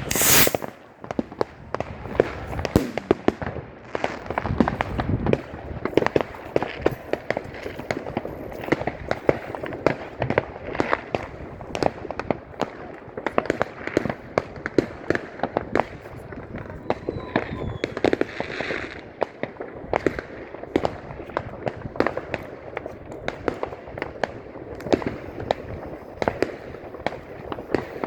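New Year's Eve fireworks and firecrackers going off all at once, a dense, unbroken run of overlapping bangs and crackles with sharp louder bangs every second or so.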